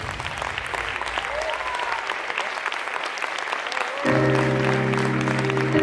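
Audience applauding, with many quick claps. About four seconds in, music with long held notes comes in.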